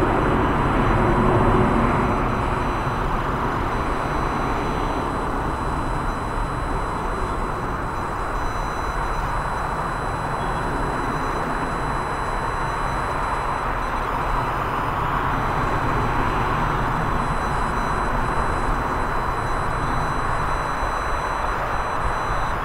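Jet engines of a British Airways Boeing 777 climbing out after take-off: a steady, loud rumbling rush that eases slightly a few seconds in and then holds.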